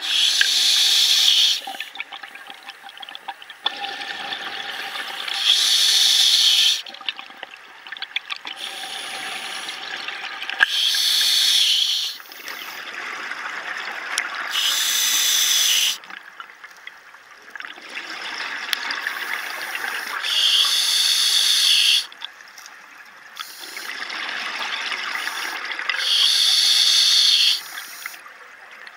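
Scuba diver breathing on an open-circuit regulator: a softer hiss of inhalation that swells between breaths, then a loud rush of exhaled bubbles lasting about a second and a half, six times at intervals of five to six seconds.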